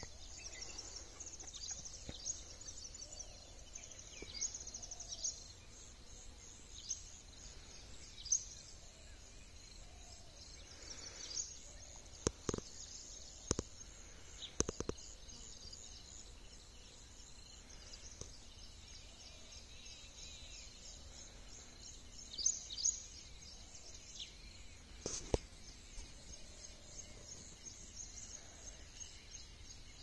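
Open-air field ambience with small birds chirping: many short, high calls that drop in pitch, scattered throughout over a constant high-pitched hiss. A few sharp clicks stand out, three in quick succession about halfway through and one more near the end.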